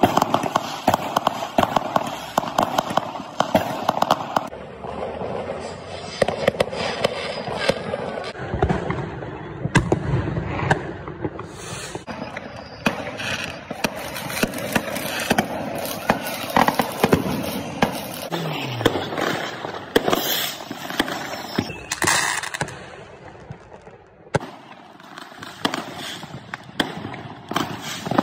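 Many fireworks going off across the city: a near-continuous run of bangs and crackling, some in quick succession.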